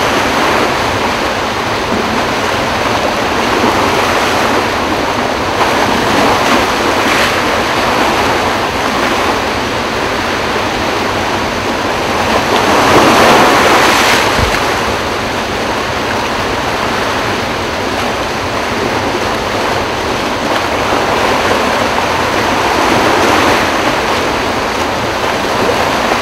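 Floodwater rushing through Kaw Dam's open spillway gates, a loud, steady rush that swells briefly about halfway through.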